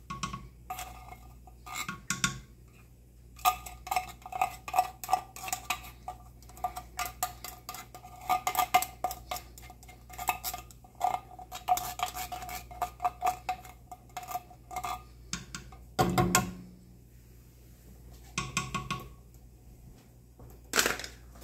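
A small spatula scraping and tapping the inside of an opened tin can of condensed cheddar cheese soup: quick clusters of clinks, the can ringing with each one. About 16 seconds in there is a single duller knock.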